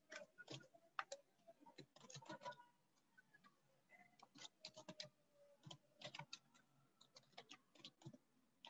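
Faint, irregular tapping of a computer keyboard being typed on.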